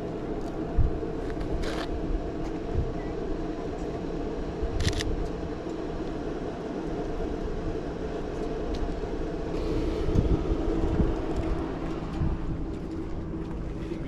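A car engine running steadily at idle, with a few sharp camera shutter clicks, the clearest about two and five seconds in.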